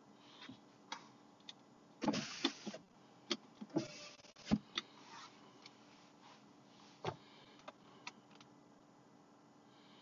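Handling noise from a phone being moved while filming: scattered sharp clicks and a brief rustle about two seconds in, over a faint steady background.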